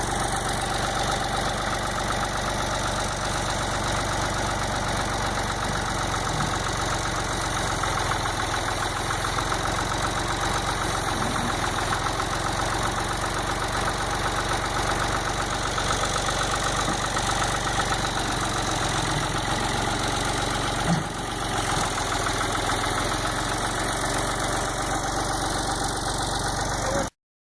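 1987 Ford 445A backhoe's engine running steadily at idle, with a brief knock about three-quarters of the way through, then the sound cuts off suddenly.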